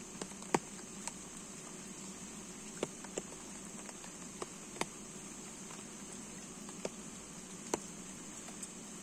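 Steady high-pitched insect buzz, with about ten irregular light sharp ticks scattered through it.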